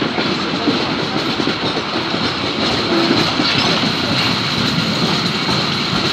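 Heritage passenger train rolling over the station tracks, heard from on board: a steady rumble and rattle of wheels on the rails, with a thin, steady high whine over it.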